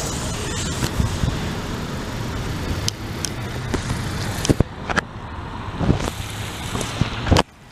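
Steady road traffic noise from passing cars, with a few sharp knocks or clicks in the second half. The noise drops suddenly near the end.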